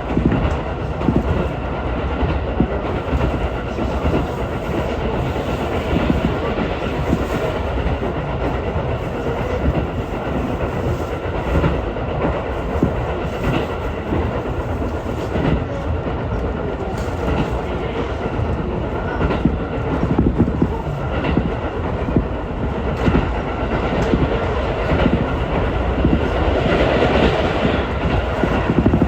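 Ichibata Electric Railway train running along the line, heard from inside the carriage: a steady rumble of wheels and motors with occasional clacks over rail joints.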